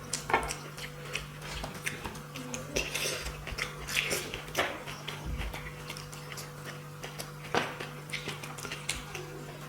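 Eating sounds of rice and fish curry: irregular small clicks and knocks of food and fingers against a plate, and chewing, over a steady low hum.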